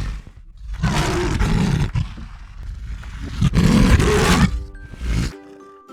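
Tiger roaring twice, two long rough roars a couple of seconds apart, followed near the end by a few notes of music.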